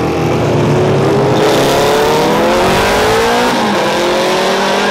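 Two classic racing motorcycles accelerating hard out of a bend. Their engines rise in pitch, and one drops for a gear change about three and a half seconds in before climbing again.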